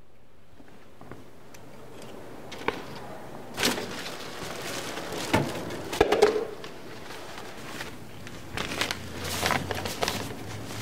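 Rustling and light knocks as a plastic bag and a milk jug are handled and set down on the floor, with a few footsteps. The busiest clatter comes about six seconds in.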